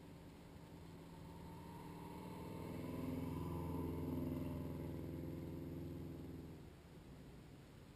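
Rally car's engine approaching and passing close by, loudest about three to four seconds in, then fading away as the car drives off.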